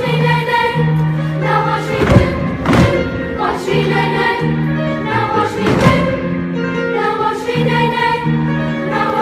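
Choir-style music with singing: held chords over a beat that lands about once a second.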